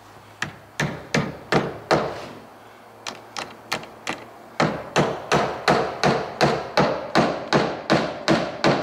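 Hammer driving nails into the wood framing around a sliding glass door frame: five blows, a pause, three lighter taps, then a steady, louder run of about three blows a second from about halfway through.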